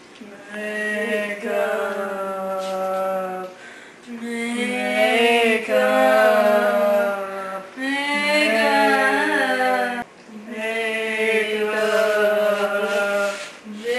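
Wordless choir-like chanting: long held sung notes over a steady low drone, in four phrases of a few seconds each with short breaks between them.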